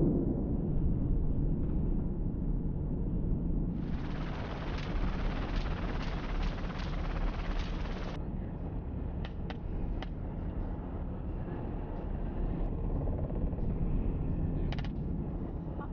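Steady low rumble of a helicopter running, with a stretch of louder hiss about four seconds in that lasts about four seconds, and a few short sharp cracks, three close together near the middle and one more near the end.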